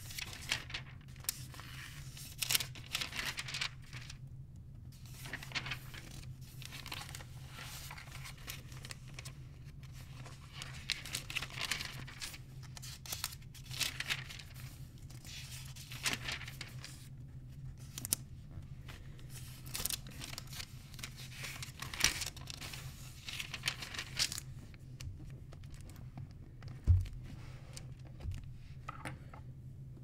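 Thin paper rustling and crinkling in repeated short bursts as pages are handled and turned, then a dull low thump near the end. A steady low hum runs underneath.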